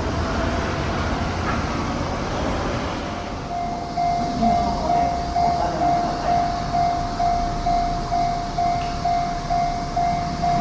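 Steady running noise of a Sotetsu electric train. From about three and a half seconds in, a railway crossing warning bell rings in even strokes about twice a second, signalling an approaching train.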